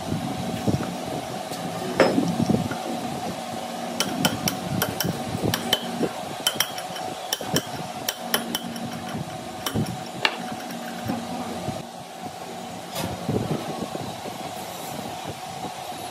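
Sharp metal-on-metal taps and clinks, like hand tools striking steel parts, coming thick between about 4 and 10 seconds in, with a few more around 2 and 13 seconds. Under them runs a steady machine hum.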